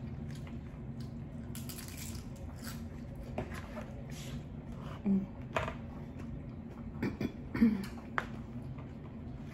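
Mouth sounds of eating hard-shell tacos: scattered crisp crunches and wet chewing, strongest between about three and eight seconds in, over a steady low hum.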